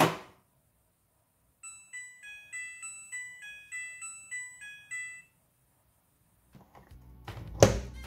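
Midea front-loading washing machine at the end of its cycle: a sharp click as the automatic door lock releases, then a short electronic tune of about ten beeping notes as the machine switches off. Near the end, a rustle and a loud clunk as the door is taken hold of and opened.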